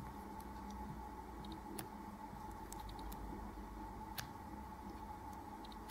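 Small fly-tying scissors snipping through a spun deer-hair head: a few faint, sharp snips spaced a second or two apart, over a faint steady hum.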